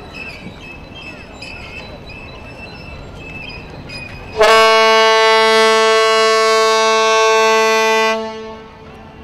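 One long, loud horn blast from a vessel, starting about halfway through with a short rising onset, holding one steady pitch for nearly four seconds and then fading.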